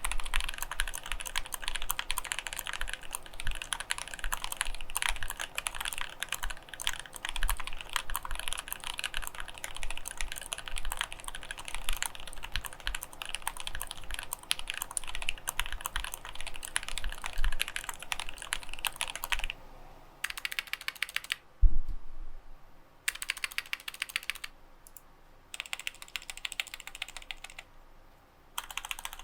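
GMMK Pro mechanical keyboard with Gateron Ink Black switches and PBT keycaps being typed on quickly, a dense run of key clicks. After about twenty seconds the typing gives way to short separate bursts of rapid repeated presses on the stabilized long keys, with one heavier knock among them. The stabilizers are stock and unlubed and, by the owner's ear, still rattle and don't sound good despite the factory pre-lube.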